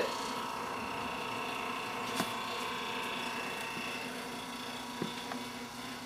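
1927 GE Monitor Top refrigerator running just after being switched on: a steady mechanical hum with a click about two seconds in.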